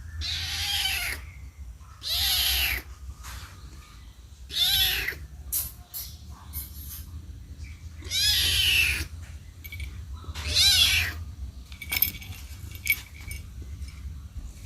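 Kitten meowing for its mother: five loud, high-pitched cries, each about a second long and spaced one to three seconds apart, with only faint short clicks after the last one.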